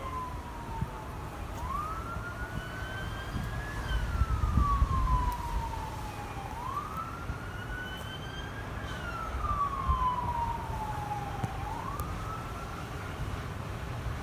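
Police siren in a slow wail. Each cycle jumps up, climbs to a peak, then slides slowly back down, about five seconds per cycle, over a low rumble of traffic.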